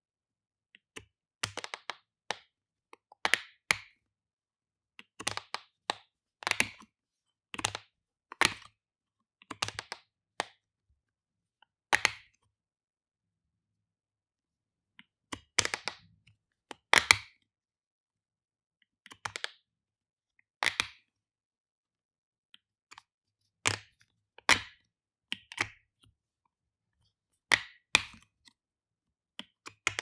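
Plastic flip-top cap of a shampoo bottle snapped open and shut over and over: sharp clicks, some in quick clusters, about one every second or two, with a pause of about three seconds midway.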